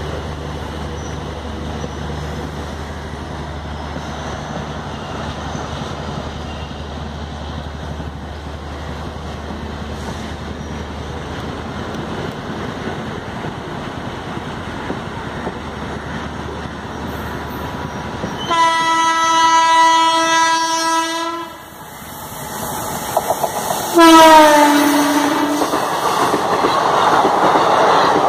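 Passenger train passing, its wheels running steadily on the rails. About two-thirds of the way in, a locomotive horn sounds a steady blast of about three seconds. A second horn blast follows a few seconds later, dropping in pitch as it passes, and the loud rush of a train going by close builds behind it.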